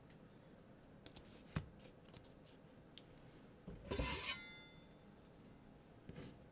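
A kitchen knife being drawn out of a stainless-steel knife block about four seconds in: a short metal scrape that leaves a brief metallic ring. Before it there are a few light taps and one sharp tap.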